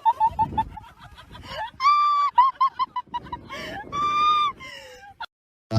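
Honking animal calls: a fast run of short honks, then two longer honks about two seconds apart with short honks between them.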